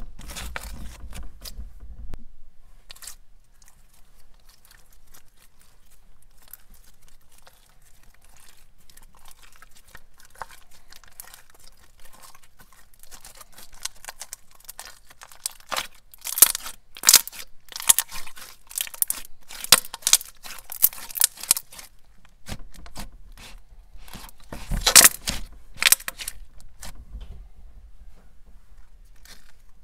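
Thick, glossy slime being worked by hand, giving off quick crackling clicks. The clicks are sparse and soft for a long stretch, then come in loud, dense flurries about halfway through and again near the end.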